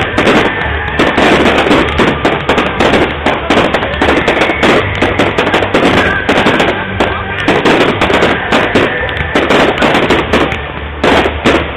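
Aerial fireworks shells bursting in a dense, rapid barrage, bang after bang with crackling in between. Heard through a mobile phone's microphone.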